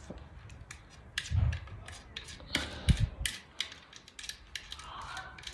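Scattered light clicks and ticks, with a couple of dull thumps, from small plastic valve-stem caps being handled and screwed onto a car wheel's valve.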